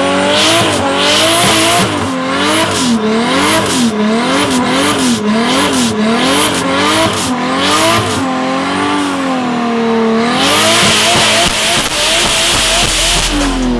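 Nissan 240SX S14 drift car doing a burnout: the engine revs rise and fall about once a second as the throttle is pumped, and the rear tire squeals on each rise. About ten seconds in, the tire spins in one long continuous screech at steady revs, and the revs drop near the end.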